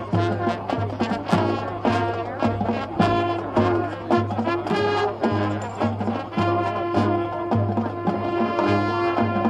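High school marching band playing a brass-heavy passage of its field show, over a steady low bass pulse of about one beat every 0.6 seconds.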